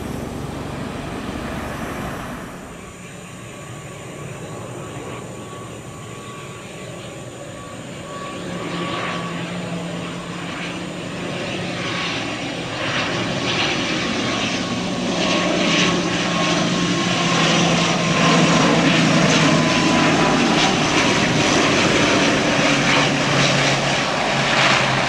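Wings Air ATR 72-600 turboprop airliner approaching and landing: its twin Pratt & Whitney PW127 turboprops give a steady hum and whine that grows louder as the aircraft comes in and touches down, the whine falling slightly in pitch. The first couple of seconds are an Airbus A320 jet on its takeoff roll.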